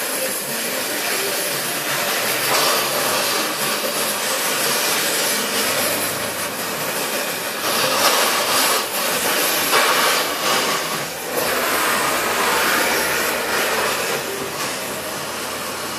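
Gas cutting torch flame hissing steadily as it cuts into metal, swelling a little now and then.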